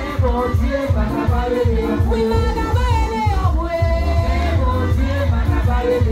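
Live gospel worship music: an electronic keyboard with a steady, heavy bass beat under a voice singing a gliding melody.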